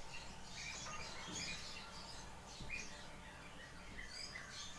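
Faint birds chirping in the background: short, high calls scattered irregularly over a low steady hum.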